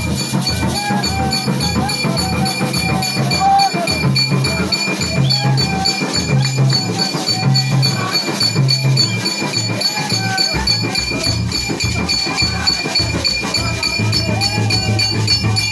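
Church worship music: voices singing over a loud, pulsing bass rhythm with shaken percussion such as tambourines or shakers.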